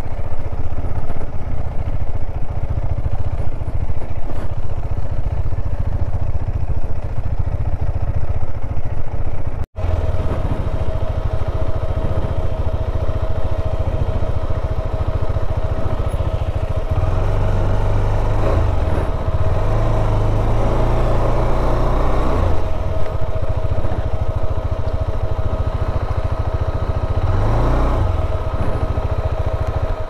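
Motorcycle being ridden: a heavy low rumble of engine and wind noise. The sound drops out briefly at a cut about ten seconds in, and a steady engine hum runs on under the rumble after it.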